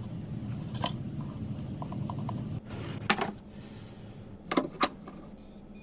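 Sharp wooden knocks and clacks, a few single taps with two in quick succession near the end, over a low rubbing noise that stops about two and a half seconds in.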